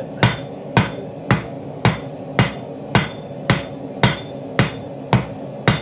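A cross-peen hammer striking a hot Damascus steel billet on an anvil in a steady rhythm of about two blows a second, each a sharp impact with a short ring. The peen is spreading the steel sideways to draw out width for a knife's integral bolster.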